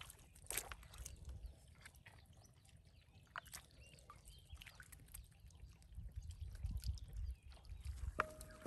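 Faint wet squelches and small clicks of hands and feet working in soft tidal mud while a live mud crab is grabbed by the shell and lifted out, over a low rumble that grows louder about six seconds in.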